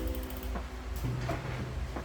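A few separate keystrokes on an Akko 5075B Plus gasket-mount mechanical keyboard with Akko V3 Pro Cream Yellow linear switches, typed over soft background music.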